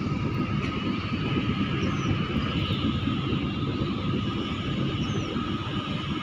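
Container ship under way, its engine running as a steady low rumble with a thin steady hum above it.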